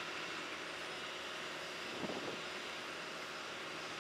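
Steady hum and hiss of distant heavy machinery, with a short knock about halfway through.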